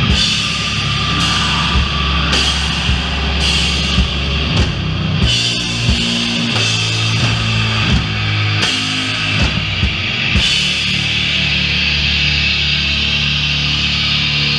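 Doom metal band playing live: low, distorted guitars and bass on a slow riff, punctuated by drum and cymbal hits. About ten seconds in the drums stop and the guitars hold a sustained, ringing chord.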